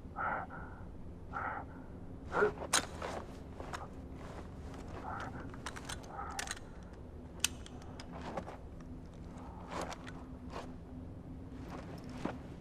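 Irregular footsteps and scuffs, with several sharp clicks about 2.5 to 3 seconds in, over a faint steady low hum.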